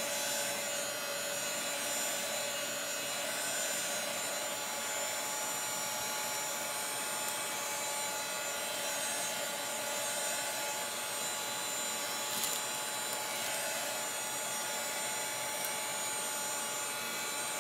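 Handheld hot-air dryer blowing steadily with a constant motor whine, drying freshly applied ink on a canvas tote bag.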